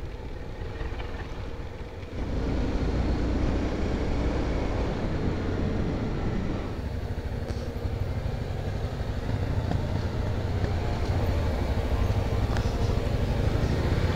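Honda XRE300 single-cylinder motorcycle engine running on the move, with wind and road noise; it gets louder about two seconds in and stays steady after.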